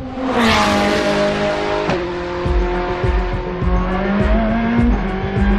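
Ferrari P80/C track car's engine running at speed on track. The engine note falls in pitch over the first couple of seconds, then holds and climbs slowly.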